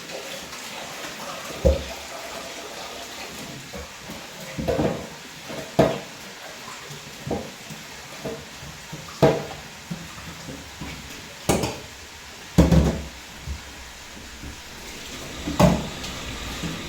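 Pots and utensils knocking and clattering during cooking, about eight separate knocks a second or two apart, over a steady background hiss.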